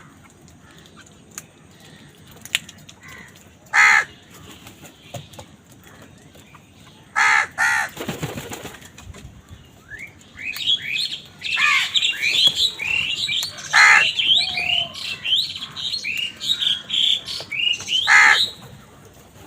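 Crows cawing: loud single caws a few seconds apart, with a dense run of quick, high chirping calls from smaller birds through the second half.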